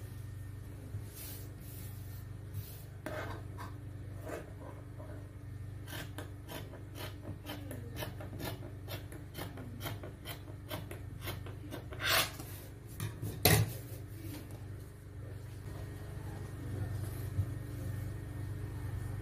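Scissors snipping through cotton fabric in a run of short crisp cuts, with fabric rustling and two louder knocks a little past the middle, over a steady low hum.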